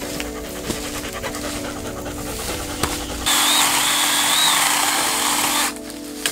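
Background music with a steady beat, and about halfway through a chainsaw runs for roughly two and a half seconds, an even hiss of the chain with a wavering high whine, then cuts off.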